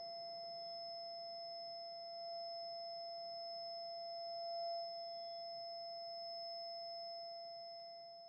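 A steady, high ringing tone held at one pitch with fainter higher overtones, swelling slightly a couple of times and fading near the end.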